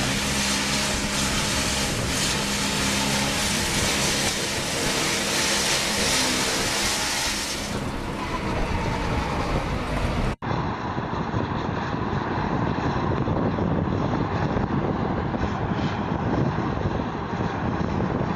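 Tracked farm tractor driving past under load, its engine running with a steady hum. About ten seconds in, the sound cuts to a duller, steady machinery noise of a combine harvester unloading grain into a truck.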